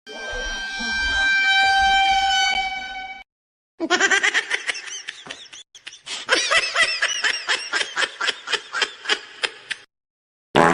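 A string of cartoonish meme sound effects: first a horn-like blare with a low rumble under it, held for about three seconds. After a short gap comes about six seconds of rapid, high, voice-like chatter in quick pulses, several a second, and a brief burst of sound near the end.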